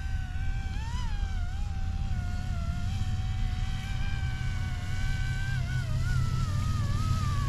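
YUXIANG F09-S RC helicopter's motor and rotor whine, its pitch wavering up and down as the throttle changes, over a steady low rumble.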